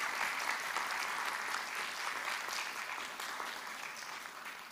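Audience applauding at the end of a lecture, a dense patter of many hands clapping that gradually dies down toward the end.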